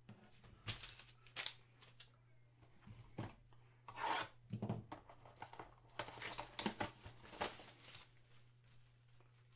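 A cardboard trading-card box being handled and torn open by hand: a series of short tearing, rubbing and rustling sounds of cardboard and wrapper, busiest between about four and seven and a half seconds in.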